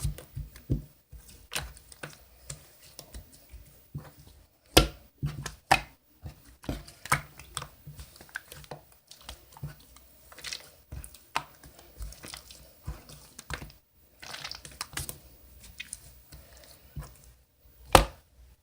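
Irregular clicks and taps with some rustling, like objects being handled, with one louder knock near the end.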